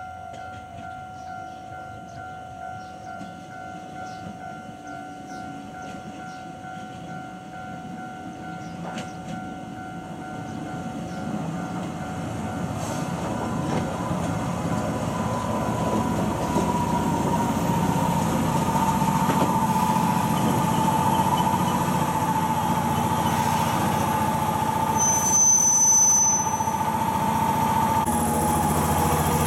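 A level-crossing warning bell rings steadily, then an ex-Tokyu stainless-steel electric train rumbles in, growing louder. Its running gear gives off a whine that falls slowly as it slows to a stop at the platform, with a brief high squeal near the end.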